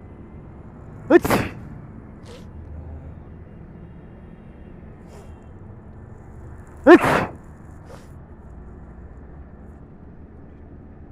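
A person sneezing loudly twice, about six seconds apart, each sneeze a short voiced 'ah' ending in a sharp burst.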